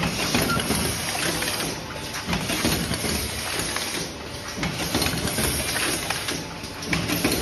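Automatic two-head paper lunch box forming machine running: a continuous, dense mechanical noise with many small clicks.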